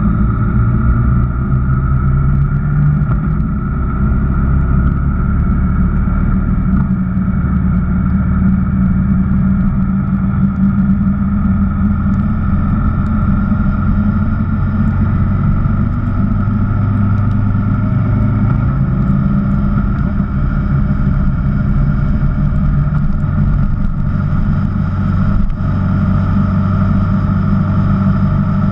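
Honda VFR1200X Crosstourer's V4 engine running steadily at road speed, heard from a camera mounted on the motorcycle, with a strong low rumble throughout.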